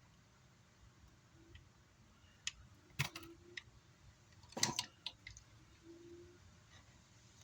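A few sharp clicks and taps of small hand tools working on a circuit board, loudest about three seconds in, with a quick cluster of clicks a second and a half later.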